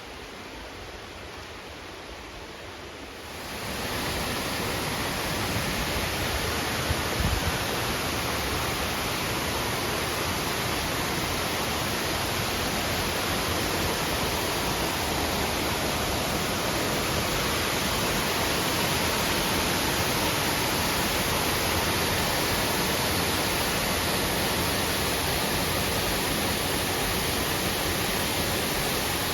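Steady rushing of a waterfall, growing louder about three seconds in and then holding steady.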